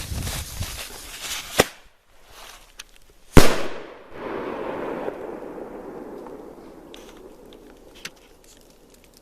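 Single-shot aerial firework: a crackling fuse hiss, a sharp launch report about a second and a half in, then the loud bang of the shell bursting about two seconds later. The burst's echo rolls on and fades over about four seconds.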